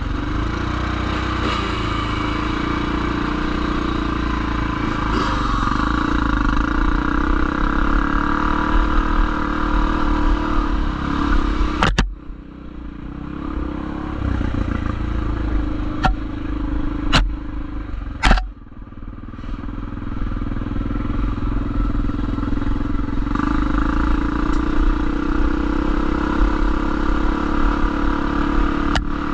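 Motorcycle engine running steadily while being ridden, with heavy low wind rumble on the microphone. About twelve seconds in it drops off suddenly, a few sharp clicks follow, and then it picks up again.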